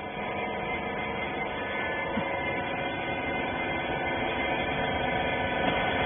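Steady hum of a running hydraulic rag baling machine, its motor and pump holding a constant tone.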